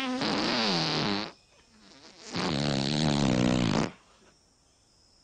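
Two long farts with a wobbling pitch, the first ending about a second in and the second, loud one from about two and a half to four seconds in.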